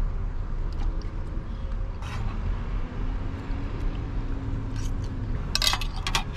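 Parking-lot traffic: a steady low rumble with a passing car's engine hum that swells slightly and fades over a few seconds, and a few short clatters near the end.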